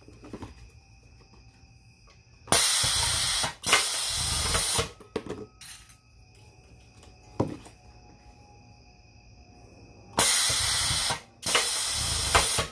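Edward Segal Model 3P6 grommet press setting grommets, two cycles several seconds apart, each a pair of loud hissing bursts about a second long. Light handling clicks fall between the cycles.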